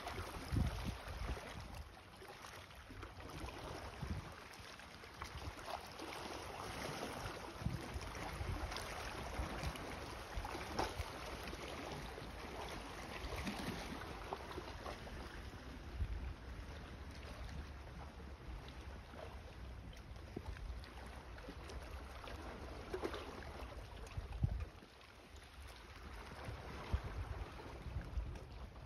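Seaside ambience: wind gusting on the microphone in uneven low rumbles over a steady hiss of small waves lapping a rocky shore.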